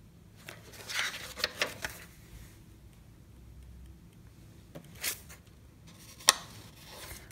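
Thin paper pages of a small sketchbook being turned and handled: paper rustles about half a second to two seconds in and again near five seconds, then a single sharp tap a little after six seconds.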